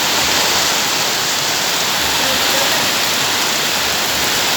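Heavy rain pouring down, a dense, steady hiss of water.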